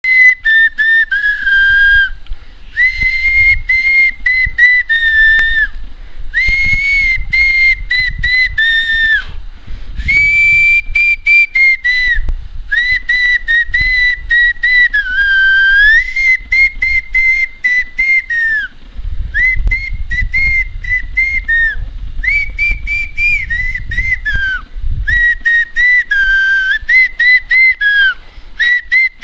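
A person whistling a melody for cows in phrases of a few seconds with short breaks, the pitch sliding up and down between notes. A low rumble runs underneath, strongest in the middle stretch.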